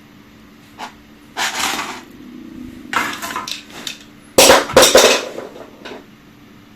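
Small hard objects clattering and clinking in several short, uneven bursts, the loudest two close together past the middle.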